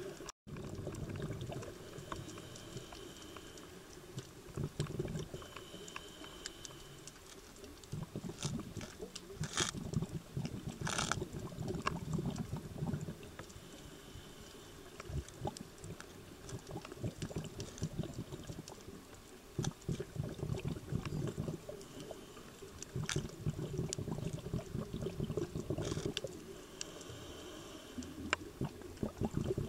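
Underwater sound of scuba diving: exhaled bubbles rumble in bursts every few seconds, with short faint regulator hisses between breaths and scattered small clicks.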